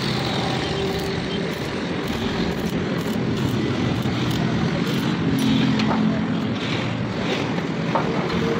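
Steady background rumble like road traffic, with short crackles from a stick welder tacking the steel slats of a gate, scattered through the middle and later part.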